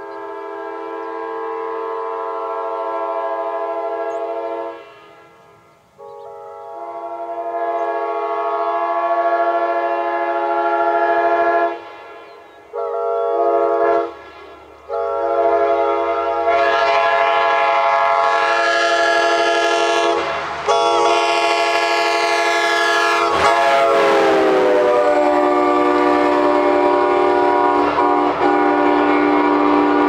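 Nathan AirChime K5LA five-chime locomotive horn sounding four blasts, the last one long and held. Its pitch drops about two-thirds of the way through as the locomotive passes. The low rumble of the train comes in under the horn partway through.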